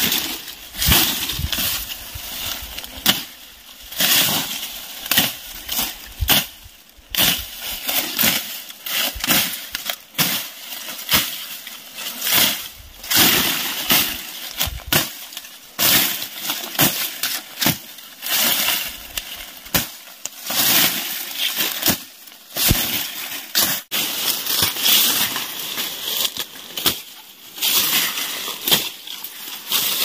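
Machete chopping through tall, dry grass stalks by hand: repeated sudden slashing strokes with crackling and rustling of dry stems, about one stroke a second, uneven in strength.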